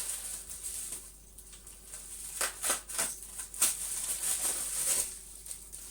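Packaging rustling and crinkling as a vacuum cleaner's accessories are unwrapped and handled, with scattered sharp clicks and light knocks of plastic parts.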